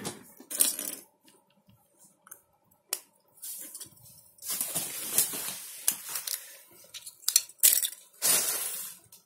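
Hard plastic pieces of a snap-together toy kit clicking, rattling and scraping as they are handled, with a few sharp clicks and several stretches of rustling.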